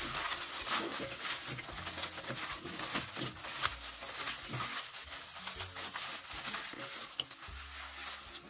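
A hand in a thin plastic glove mixing raw potato slices wet with food colouring in a glass bowl: steady crinkling of the glove with wet squishing and rustling of the slices, full of small sharp ticks.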